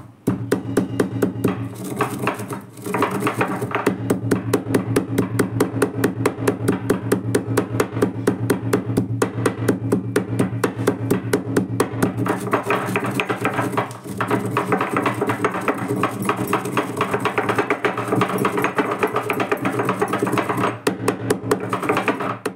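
Stone pestle pounding dry cumin, mustard and fenugreek seeds in a stone mortar, a steady rhythm of about four strokes a second with short breaks about three seconds in and midway, crushing the seeds to a fine powder. Steady background music plays underneath.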